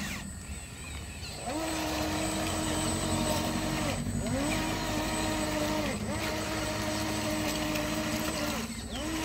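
Electric drive motor of a toy RC crawler bulldozer whining as it drives in runs of about two seconds. The pitch rises as each run starts and drops as it stops.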